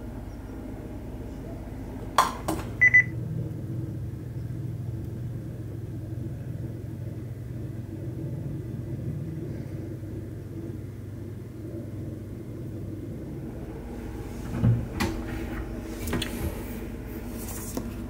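Aiphone intercom touchscreen tapped: two clicks, then a short electronic beep about three seconds in. Later, clicks and knocks as the shoe cupboard door is opened, over a steady low hum.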